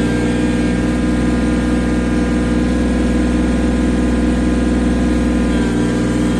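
Excavator engine running at a steady speed, a constant hum with a slight shift in tone near the end.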